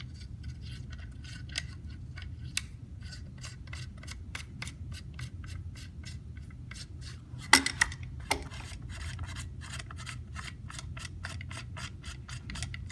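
Steel flash hider being threaded onto a rifle barrel's muzzle by hand: a steady run of small metal-on-metal scraping clicks, about three or four a second, with two louder knocks a little past the middle.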